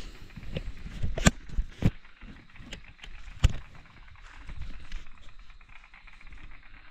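Handling noise from a handheld camera being swung about: several sharp knocks and rubbing, the loudest about a second in and again halfway through. Under it, a steady high hum of night insects.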